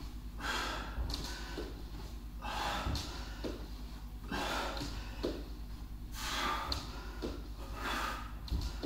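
A man breathing hard through repeated sit-ups, a sharp puff of breath pushed out with each rep, roughly every one and a half to two seconds. Soft low knocks from his body on the floor come between the breaths.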